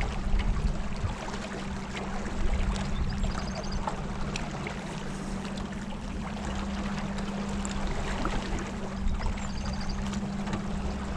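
A boat under way on a river: water rushing and trickling along the hull, with a steady low hum underneath.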